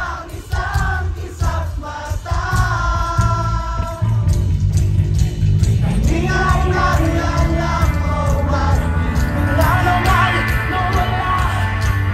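Live rock band playing through a large concert sound system, heard from far back in an outdoor crowd, with many voices singing along. The music swells louder about four seconds in.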